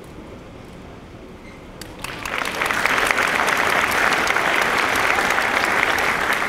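Audience applauding. The clapping breaks out about two seconds in and holds loud and steady.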